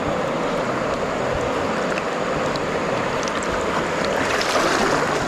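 Fast river current rushing steadily: an even, unbroken hiss of flowing water.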